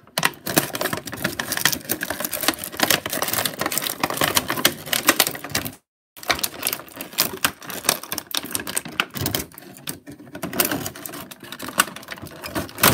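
Stiff clear plastic toy packaging crackling and clicking densely and irregularly as it is handled and pulled apart to free an action figure. The sound cuts out completely for a moment about six seconds in.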